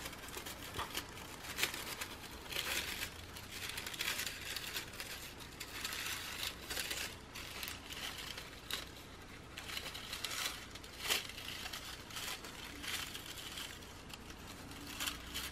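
Fringed strip of card stock rustling and crinkling in the hands as it is twisted and rolled into a paper flower center, in irregular soft bursts, with one sharp click about eleven seconds in.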